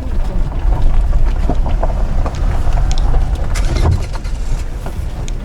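Car engine running at low speed with a steady low rumble, with scattered clicks and knocks, as a car is manoeuvred in a parking lot.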